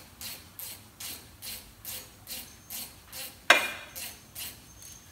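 Ratchet wrench backing out a brake caliper guide pin bolt, clicking in a steady rhythm of about two swings a second, with one sharp metallic clank about three and a half seconds in.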